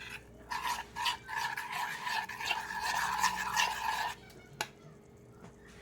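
A utensil scraping and stirring in a pot or pan for about three and a half seconds, followed by a single sharp knock.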